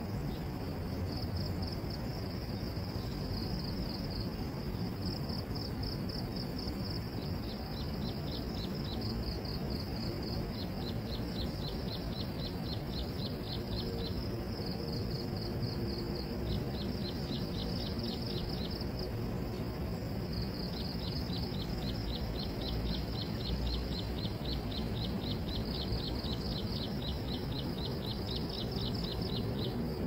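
Insects chirping: a steady high trill broken by runs of fast, even pulses that come and go every few seconds, over a steady low background noise.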